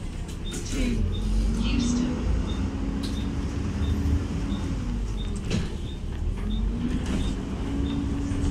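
A bus's engine cooling fan running loudly over the engine's drone, its pitched hum rising twice as it speeds up. A faint tick about twice a second and a couple of sharp knocks are heard.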